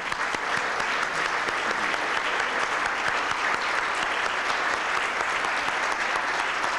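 A roomful of dinner guests applauding: many hands clapping in a steady, sustained round.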